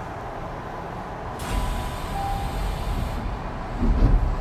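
Tokyu 5050 series electric train, heard from inside, coming to a stop at a station: steady running noise, then a burst of air hissing from the brakes about a second and a half in that lasts under two seconds, and a heavy low thud near the end.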